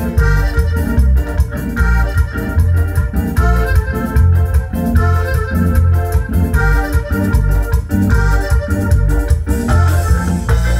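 Cumbia music with a keyboard melody over a heavy bass line and a steady, even beat.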